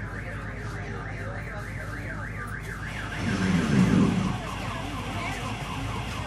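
Bus interior with the engine's steady low hum. An electronic alarm tone warbles up and down about three times a second until about halfway through. A louder low surge lasts about a second after that, and a faster, lower warbling tone carries on to the end.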